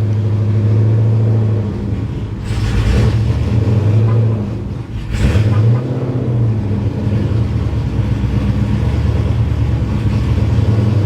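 Dodge Scat Pack's 6.4-litre Hemi V8 with a newly installed stage 6 camshaft idling with an uneven, lumpy chop, with a brief rise in engine speed about six seconds in. The engine is not yet properly tuned for the new cam.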